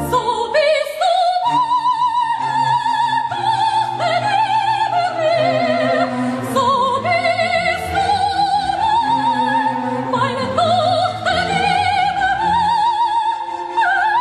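Background music: an operatic soprano singing high, sustained notes with wide vibrato over an accompaniment.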